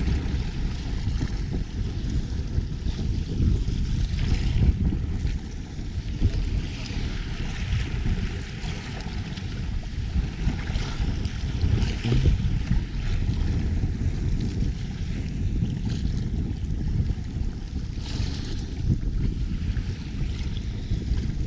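Wind buffeting the microphone over choppy sea, with waves washing and splashing against the bow of an outrigger boat under way. Now and then the hiss of spray swells up for a second or so.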